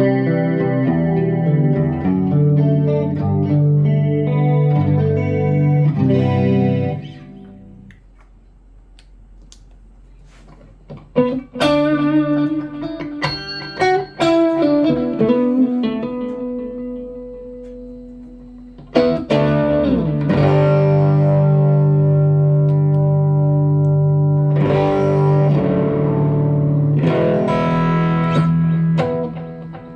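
Electric guitar played through presets of a BOSS GT-1 multi-effects processor. Sustained chords ring out, fade away about seven seconds in, then give way to picked single notes, and a new chord is struck a little past the middle and held.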